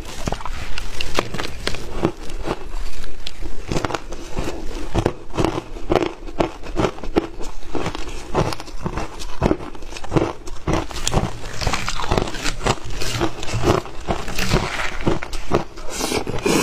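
Shaved ice being crunched between the teeth: a dense run of crisp, crackling bites in quick succession, with a metal spoon scooping through the ice.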